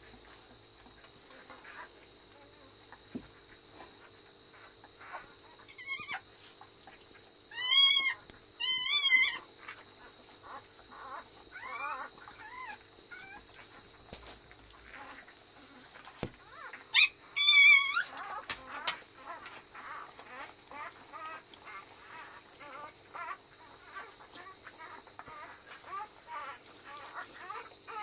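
Newborn husky puppy squealing in a few short bouts of loud, high, wavering cries, the loudest two pairs coming a third and two thirds of the way through, then faint quick squeaks while its mother licks it.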